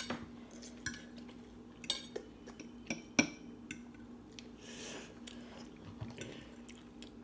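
Metal forks clicking and scraping against plates at scattered moments, over a faint steady low hum.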